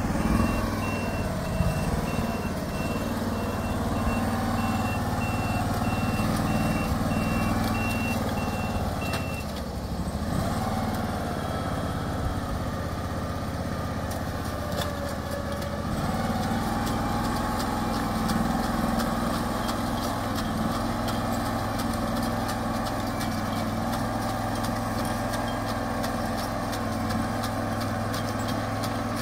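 Farm machine engine running steadily, with a repeating high-pitched beep, like a warning or reversing alarm, that stops about nine seconds in. The engine speed dips briefly about ten seconds in and settles again a few seconds later.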